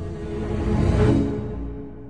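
Film-score soundtrack music that swells with a deep rumble to a peak about a second in, then fades.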